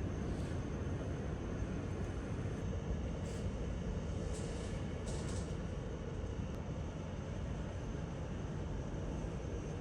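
Steady low rumble and hiss of a moving vehicle, with a few faint brief ticks around the middle.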